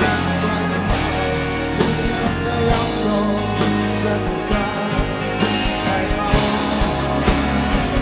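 Live rock band music with strummed acoustic guitar and a steady drum beat, in a passage without sung lyrics.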